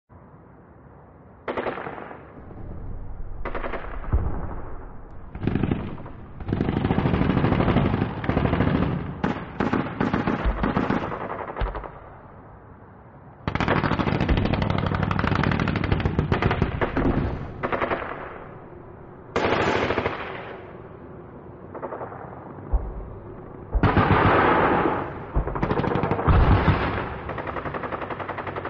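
Bursts of rapid automatic gunfire lasting a few seconds each, with single shots in the first few seconds and short lulls between the bursts.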